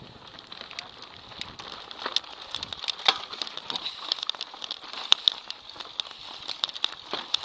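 Mountain bike riding down a rough dirt and stone trail: tyres crunching over loose gravel, with many irregular clicks and knocks as the bike rattles over bumps, the sharpest about three seconds in and again around five seconds.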